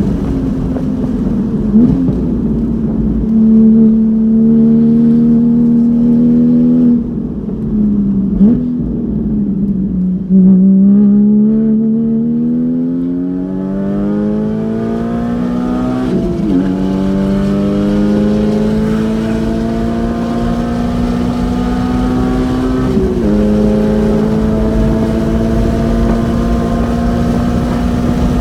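Porsche Cayman GT4's flat-six with an open exhaust, heard onboard at racing speed. The engine lifts and comes down in pitch between about 7 and 10 seconds in, then pulls hard with the pitch climbing, broken by quick upshifts about 16 and 23 seconds in.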